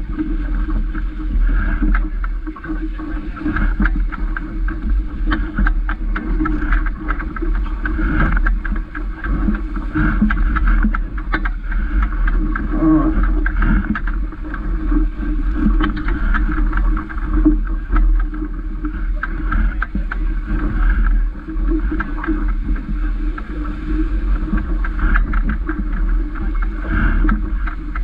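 Water rushing and splashing along the hull of a Vaucluse Junior sailing dinghy under way, with wind buffeting the microphone as a steady low rumble.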